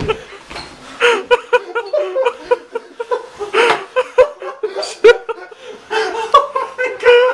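People laughing and snickering in many short bursts.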